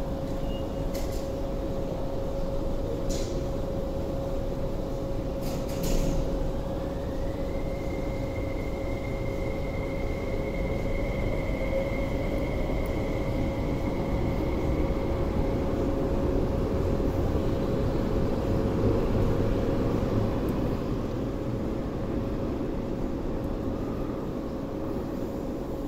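MTR SP1900 electric train pulling out along a platform behind screen doors, with a low rolling rumble under a steady hum. About six seconds in, a whine rises quickly in pitch and then holds steady for several seconds as the train gathers speed. A few sharp clicks come in the first six seconds.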